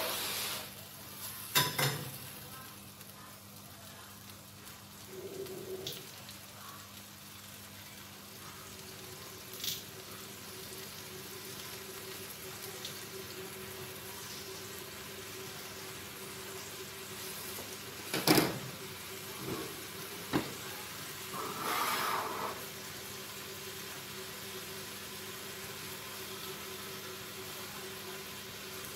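Blended chili paste sizzling and bubbling in oil in a frying pan, cooked down until the oil separates. A few sharp knocks of a spatula or pan on the stove, the loudest about eighteen seconds in, and a short clatter a few seconds later.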